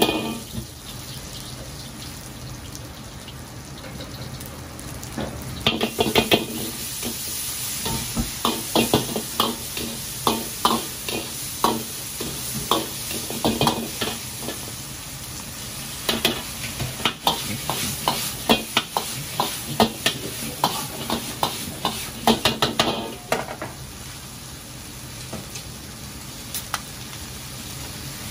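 Stir-frying in a Chinese wok: oil sizzling steadily while a metal ladle scrapes and clanks against the wok in quick runs of strokes, busiest from about six seconds in until near the end.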